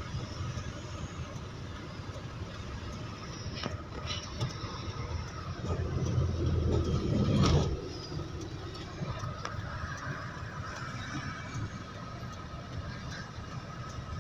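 Tractor-trailer cab noise in slow stop-and-go traffic: the truck's engine running with road rumble. A louder low rumble swells about six seconds in and cuts off sharply near eight seconds.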